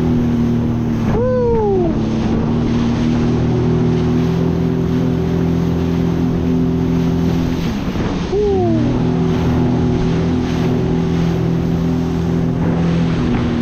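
Jet ski engine running steadily at speed, with water spray hissing around the hull. About eight seconds in, the engine note dips briefly and picks back up.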